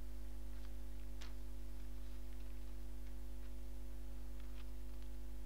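Steady low mains hum with a few faint steady tones above it, and a few faint light ticks scattered through it.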